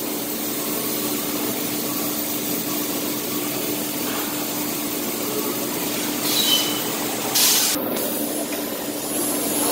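Steady factory machinery noise with a constant hum from a powered roller conveyor line carrying a foam block. Two short hisses, about six and seven and a half seconds in.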